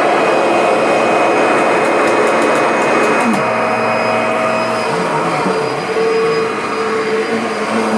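Kirby G10 Sentria upright vacuum running loud and steady as it is pushed over a throw rug. Its whine shifts a little in tone from about three seconds in.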